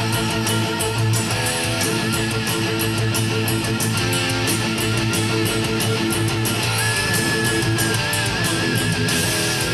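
Distorted electric guitar through a DiMarzio DP100 Super Distortion humbucker playing a heavy metal lead line, with sustained notes shaken by vibrato and one long held vibrato note starting about seven seconds in.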